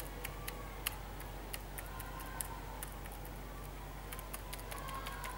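Light, irregular clicks of keys being pressed on a freshly replaced Asus Eee PC Seashell netbook keyboard, several a second, over a steady low hum. Some keys on the new keyboard still stick and are slow to spring back.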